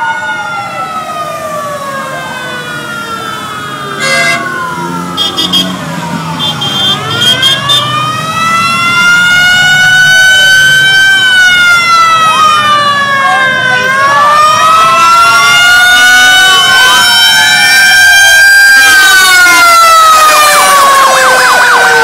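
Several sirens wail at once, each rising and falling slowly and out of step with the others. A few short high beeps sound between about four and eight seconds in, and from about nine seconds the sirens grow louder.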